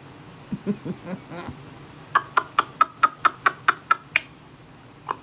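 A person making silly mouth noises to a cat: a few short low sounds, then a quick, even run of about ten clicking noises, about five a second.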